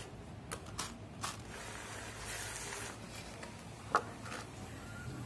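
Deep-fried potato fritters set into a cut-glass bowl by hand, giving a few light knocks and clicks in the first second or so and one sharper click about four seconds in.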